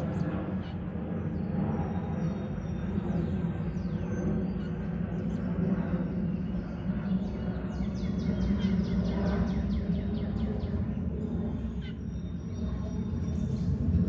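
Outdoor ambience: a steady low rumble with small birds calling in thin high notes, and a rapid trill of about eight notes a second a little past halfway.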